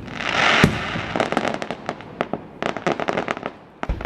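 Aerial fireworks bursting overhead: a hissing rush and a loud bang in the first second, then two runs of rapid crackling pops, and a dull thump near the end.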